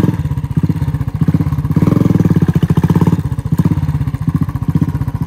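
Royal Enfield Bullet 350's single-cylinder engine thumping at low revs as the bike is eased over loose rocks, with a brief burst of throttle about two seconds in.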